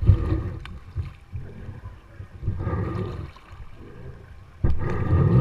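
Water sloshing and gurgling around an inflatable kayak on a river, swelling three times about two seconds apart.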